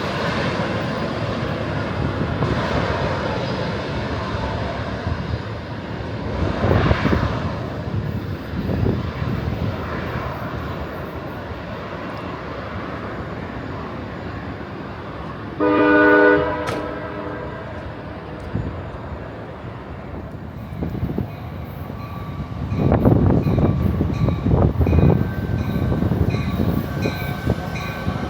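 Amtrak passenger train rumbling steadily through the station. About halfway through, the locomotive horn gives one short blast. Near the end the rumble swells and a repeating high ringing tone begins.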